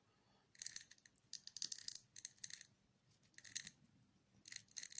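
Five short bursts of light, crisp clicking and scraping from the RC car's small plastic gears and parts being handled while they are greased.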